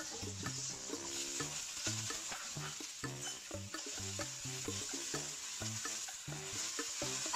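Chillies and garlic sizzling in hot oil in a nonstick wok, stirred with a spatula that scrapes and taps the pan in many short clicks; about halfway through, fish balls and sliced Vietnamese pork sausage are tipped in and keep sizzling.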